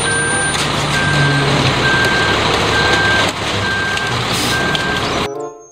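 Concrete mixer truck running with its reversing alarm beeping about once a second over the steady engine noise. The sound cuts off suddenly near the end.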